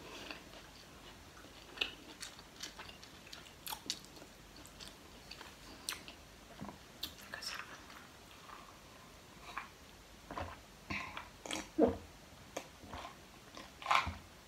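Close-miked mouth sounds of chewing and crunching potato chips, irregular crisp crackles that come thicker and louder in the later seconds. Near the end, sips from a plastic cup of iced water.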